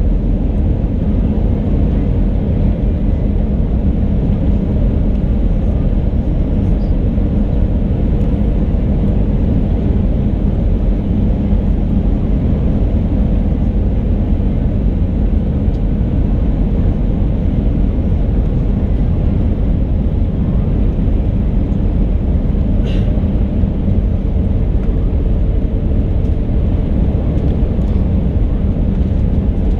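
Steady engine and airflow noise of an Airbus A319 heard inside the passenger cabin, with a faint steady hum and one brief click about 23 seconds in.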